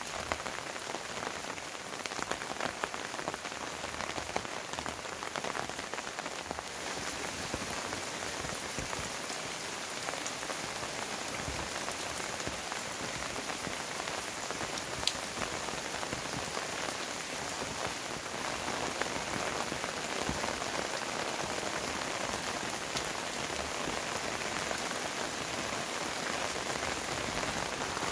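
Heavy rain falling steadily: a dense, even patter with scattered sharper drop hits.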